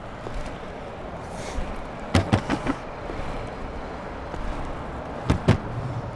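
Longboard wheels rolling on a paved path with a steady rumble, broken by sharp clacks: a quick run of four about two seconds in and a pair near the end.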